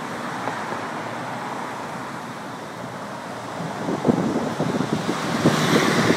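Street traffic passing: a steady wash of tyre and engine noise, with a car going by near the end. From about four seconds in, wind buffets the microphone in rough gusts.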